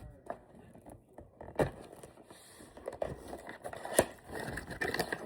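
Rustling and scraping of a tripod and its packaging being handled during unboxing, with two sharp clicks or knocks, one about one and a half seconds in and a louder one about four seconds in.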